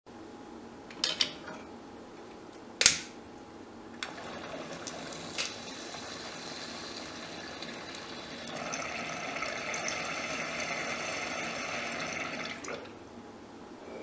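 Water bubbling through glass marbles in a half-gallon mason jar water pipe as smoke is drawn through it, starting about four seconds in, getting louder from about halfway and stopping near the end as the jar is cleared. Two sharp clicks come first, the second the loudest sound.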